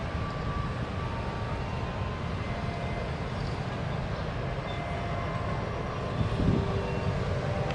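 Steady low rumble of road traffic, motor scooters and cars, crossing the tracks, mixed with the running of a diesel locomotive.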